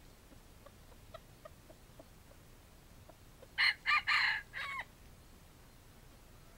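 Red junglefowl rooster crowing once, a short four-part crow of about a second, a little past the middle. Before it come a few faint, soft clucks.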